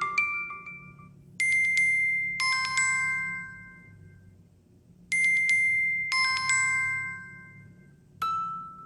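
Samsung Galaxy Watch 8 ringtone: a short bell-like phrase of four chiming notes, played twice about four seconds apart, each note left to ring out. A quick run of mallet notes fades at the start, and a single new chime note sounds near the end.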